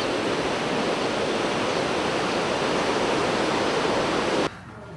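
Waterfall rushing steadily, cutting off abruptly about four and a half seconds in.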